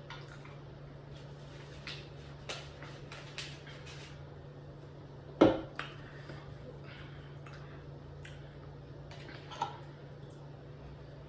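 Scattered light clicks and taps of things being handled, with one sharp louder knock about five and a half seconds in and a smaller one near the end, over a steady low hum.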